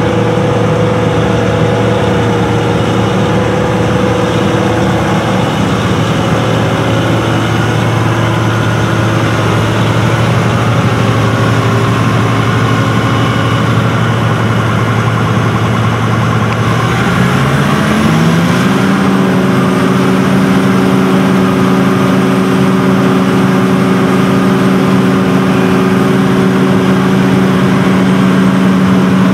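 Diesel engine of a John Deere self-propelled forage harvester running steadily, then revving up about two-thirds of the way through and holding at a higher steady speed.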